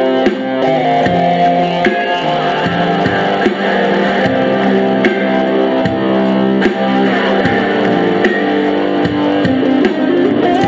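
Music with guitar over a steady percussive beat.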